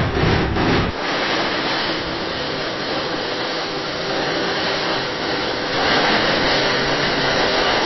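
Ironworks factory machinery: a rhythmic rasping stroke, about three a second, stops about a second in and gives way to a steady, loud hiss-like machine noise that grows brighter near the end.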